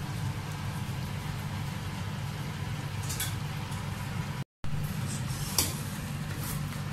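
Chicken curry in coconut gravy bubbling in a wok over a gas stove, over a steady low hum. A wooden spatula clicks against the wok once about three seconds in and a few more times in the second half.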